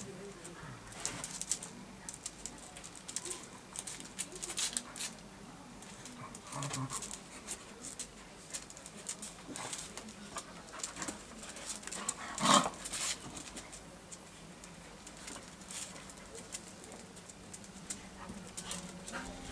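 Two dogs, a black Australian kelpie and a white-and-tan beagle, play-fighting: scuffling, with many short ticks of claws and paws on the paving. About twelve and a half seconds in, one of the dogs lets out a single loud, short vocal outburst.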